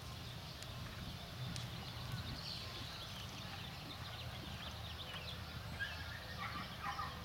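Horse cantering on arena sand, its hoofbeats faint, over a steady low rumble.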